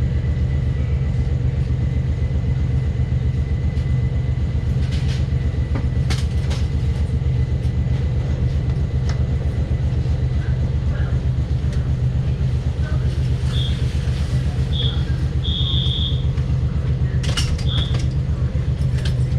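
Passenger train running along the line, a steady low rumble with scattered clicks from the wheels over the rails. A few short high-pitched tones sound in the last third.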